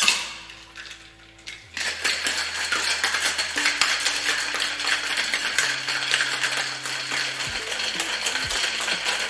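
Boston-style cocktail shaker knocked shut with one sharp clack, then shaken hard for about seven seconds, ice cubes rattling steadily against the tin and glass.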